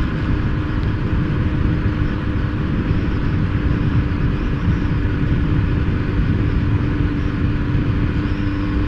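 Motorcycle riding at a steady speed heard from inside the rider's helmet: a steady engine note under heavy wind and road rumble.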